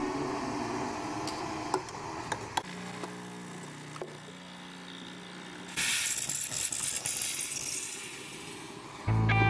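Breville espresso machine's steam wand blowing off steam with no pitcher under it, a loud hiss that starts suddenly about six seconds in and stops about two seconds later: the wand being purged after steaming milk. Before it come a few light clicks and knocks.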